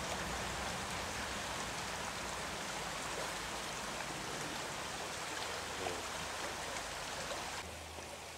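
Steady rush of a flowing stream. Near the end it drops to a quieter, thinner rush.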